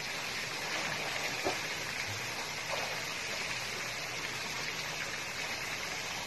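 Steady splashing hiss of swimming-pool fountain jets pouring into the water.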